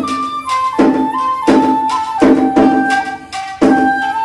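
A 1.8-shaku bamboo shakuhachi plays a Japanese folk-song (min'yō) melody, holding notes and stepping between them, over a karaoke backing track with drum strokes about once or twice a second.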